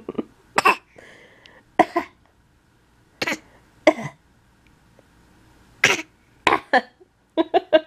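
An infant giving a series of short, put-on coughs, about eight spread out with pauses between, as a playful game rather than illness; a quick run of short baby vocal sounds comes near the end.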